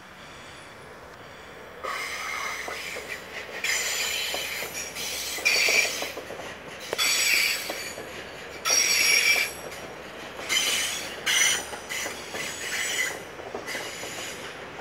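Railway wheels squealing against the rails in repeated high-pitched squeals, each with several steady tones, starting about two seconds in.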